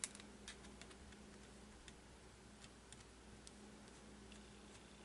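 Faint, irregular small clicks and ticks from a precision screwdriver and metal parts being handled while the two bottom screws of an iPhone 11 are worked out, with one sharper click right at the start.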